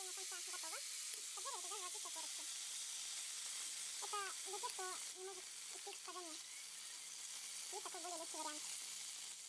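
Oil sizzling steadily in a frying pan of samsa, with a high-pitched voice talking quietly in the background a few times.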